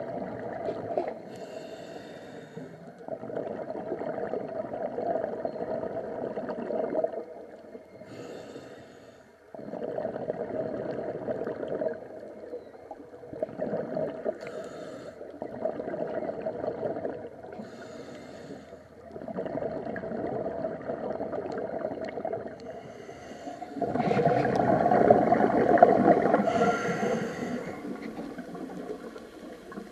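Diver breathing through a regulator underwater: a short hissing inhale followed by a long bubbling exhale, repeating about every five to six seconds, with the last exhale the loudest.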